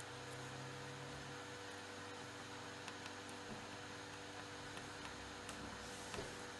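Steady electrical hum with several tones, one lower tone dropping out about a second and a half in, and a few faint ticks.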